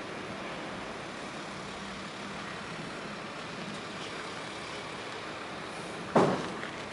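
Steady outdoor background hiss with no clear source, broken by one sharp knock near the end.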